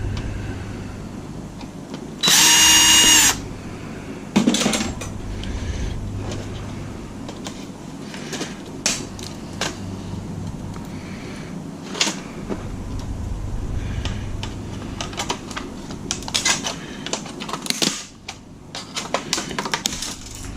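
A power drill runs in one whine of about a second, a little over two seconds in, backing out a screw from the console. The rest is scattered clicks and knocks of plastic and metal parts being handled.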